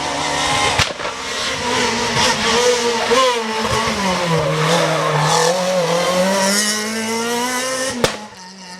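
Rally car engine at high revs on a special stage, the note rising and falling as the driver works the throttle and gears. It cuts off suddenly with a click about eight seconds in.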